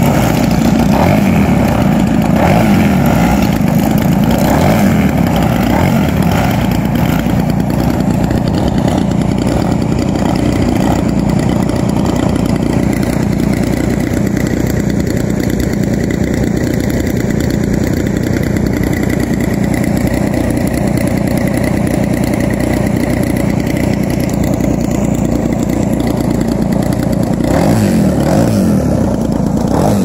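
Giant-scale radio-control model airplane engine running steadily at low throttle, its propeller turning, getting a little louder near the end.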